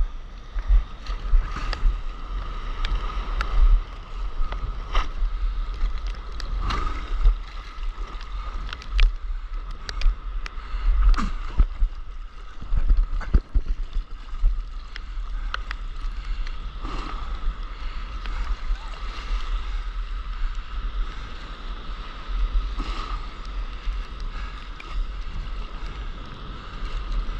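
Wind buffeting an action camera's microphone over sea water lapping and splashing against a stand-up paddleboard, with many sharp ticks of water drops hitting the camera housing. A faint steady tone runs underneath throughout.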